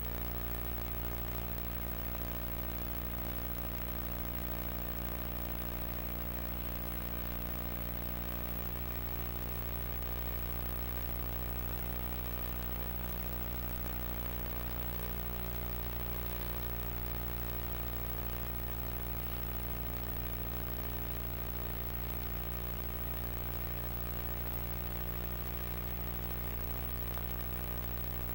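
Steady electrical hum with many evenly spaced overtones, over a hiss.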